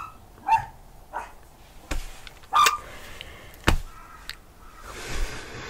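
A dog barking in short, sharp yaps, a few times in the first few seconds, with a few sharp clicks in between.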